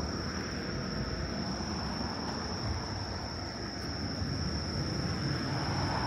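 Night insects singing in one steady high-pitched note, over a low rumble of road traffic that grows a little as a car passes near the end.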